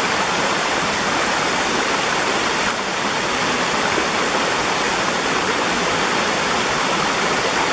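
Small waterfall pouring over rock ledges into a pool: a steady, even rush of falling water.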